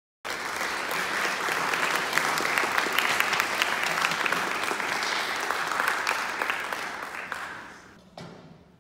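Audience applauding in a recital hall, a dense patter of clapping that dies away near the end, followed by a single sharp knock.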